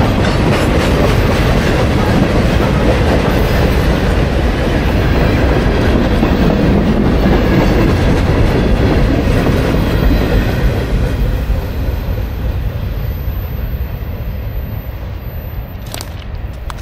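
Freight train rolling past, its wheels clacking and rumbling over the rails, fading away from about ten seconds in. A single sharp click near the end.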